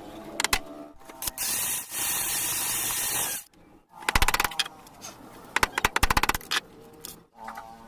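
Hand-tool noises: a steady hiss lasting about two seconds, then two short bursts of rapid clicking.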